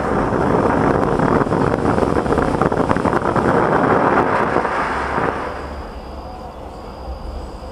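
TNT Megabyte Laptop ground fountain firework spraying sparks with a loud hiss and dense crackling, which dies down after about five seconds as the fountain burns out.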